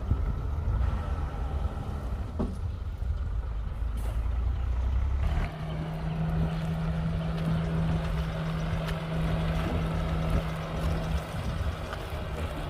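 Bulldozer's diesel engine running with a deep rumble. About five seconds in the note changes to a steady, higher hum that holds for several seconds and then eases back near the end.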